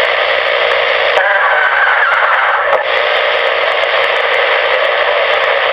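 Cobra 29 XLR CB radio's speaker putting out steady, loud, tinny static on an open channel, with faint wavering tones running through the hiss.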